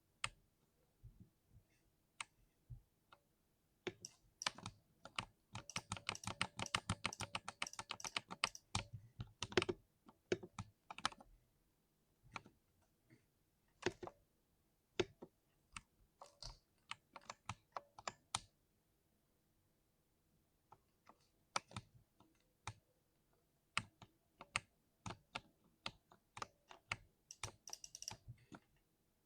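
Mechanical keyboard typing with a deep 'thock': scattered single keystrokes, a dense run of fast typing from about five to nine seconds in, a short pause around twenty seconds, then more irregular keystrokes.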